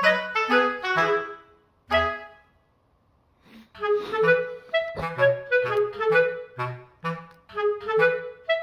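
Background music: a melody of short notes over a bass line, breaking off about two seconds in and starting again about a second and a half later.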